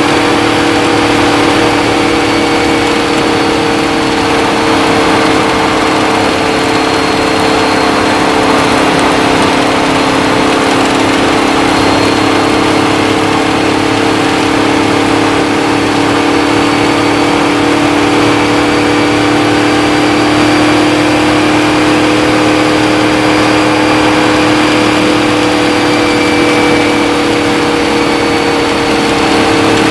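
Indy-style race car engine running hard at speed, heard from the cockpit, holding a near-steady pitch that drifts only slightly up and down, over a steady hiss.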